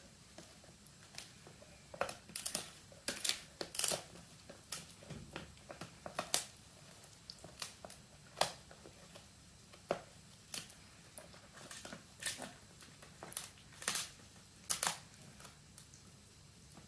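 Italian greyhound gnawing on a dried pig ear: irregular sharp crunches and cracks, in clusters, with short quiet gaps between bites.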